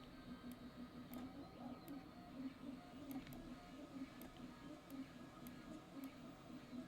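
Faint computer mouse clicks at irregular intervals, about one or two a second, over a low background hum.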